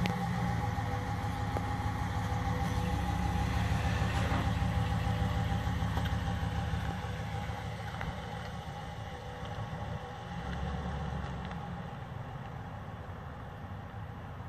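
2014 Ram 1500 pickup's engine running as the truck pulls slowly away, the sound fading steadily as it gets farther off.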